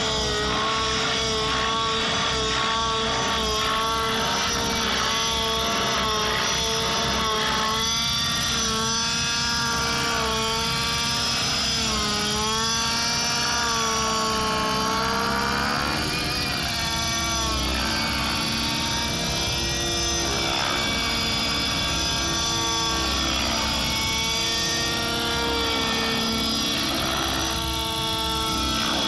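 Petrol-engined T-Rex 700 radio-controlled helicopter flying 3D aerobatics: its engine and rotor drone rise and fall in pitch again and again as the load changes, with a sharp upward sweep around the middle.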